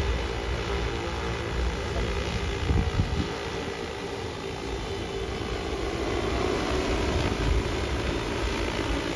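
Six-rotor agricultural spraying drone hovering and flying, its propellers giving a steady multi-tone buzzing hum, a little louder near the end as it comes closer.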